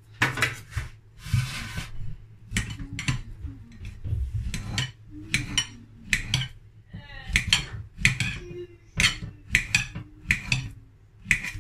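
Kitchen knife slicing soft, overripe plantain into rounds and striking a ceramic plate, a sharp click with each cut, repeated every half second or so.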